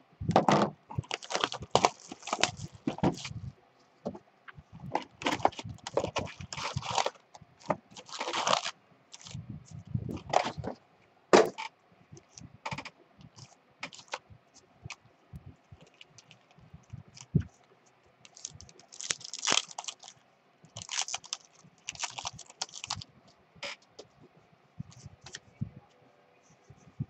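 Hands opening a sealed cardboard box of baseball card packs and handling the wrapped packs inside: irregular crinkling, scraping and tearing with sharp cracks. Near the end a pack wrapper is torn open.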